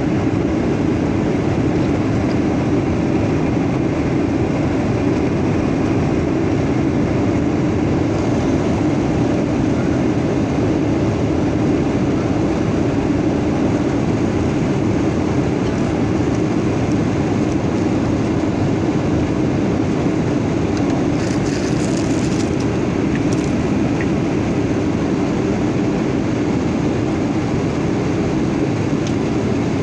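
Steady drone of a Boeing 737-900's CFM56-7B jet engines heard inside the passenger cabin, an even noise with a strong low hum. A few brief faint rattles come about two-thirds of the way through.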